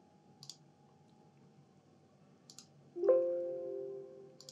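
Quiet computer mouse clicks, then about three seconds in a Windows alert chime as a 'file already exists, replace it?' warning box pops up. The chime strikes suddenly and rings out over about a second.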